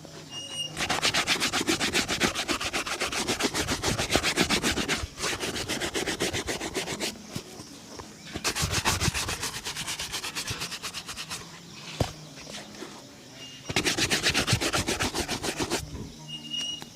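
A shoe being buffed with fast back-and-forth strokes, many to the second, in three long spells. A single sharp click comes between the second and third spells.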